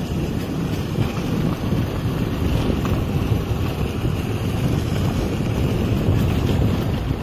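Steady wind buffeting the microphone of a moving vehicle: a dense low rumble, with the vehicle's running noise mixed in.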